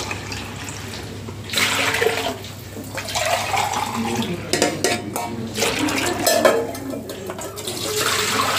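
Coconut milk poured from a metal bowl into a saucepan, splashing in spells, with a few clinks of metal vessels.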